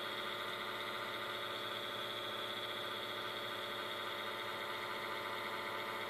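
Steady, unchanging hum made of many even tones from a powered-on laptop, its hard drive spinning.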